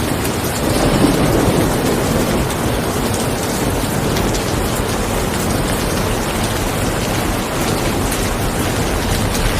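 Steady rain, a dense hiss with fine drop ticks, with a low rumble that swells briefly about a second in.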